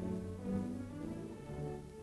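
Orchestral background music, low strings playing sustained notes.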